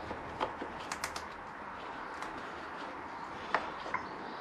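A few faint clicks and rustles as rubber vacuum hoses and plastic sensor connectors are handled and pulled off a motorcycle's airbox, over a low steady background.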